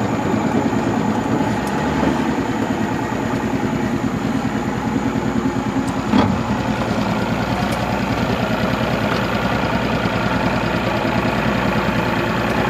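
Boat's outboard motor running steadily at low speed, heard from on board as the boat moves along. A single sharp knock about six seconds in.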